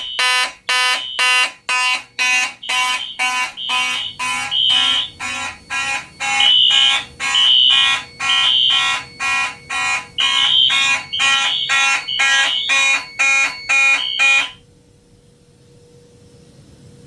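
Several fire alarm horns sounding together out of step: the Simplex horns pulse in march time, about two blasts a second, while others sound in a temporal code-3 pattern of longer blasts. All of them cut off suddenly about 14.5 seconds in as the system is silenced.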